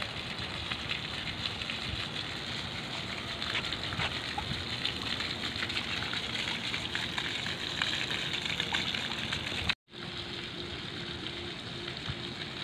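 Water splashing steadily from small fountain jets spraying into a swimming pool, a continuous hiss full of tiny droplet crackles. It cuts out abruptly for a moment about ten seconds in, then comes back a little quieter.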